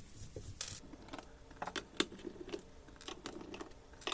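Scattered light clicks, taps and a brief rustle of a laptop and small tools being handled as the laptop's bottom cover is about to be unscrewed.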